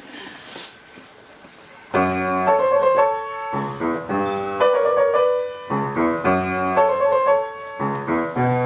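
Low room noise, then about two seconds in a piano starts playing chords in a steady rhythm: the accompaniment's introduction to a song.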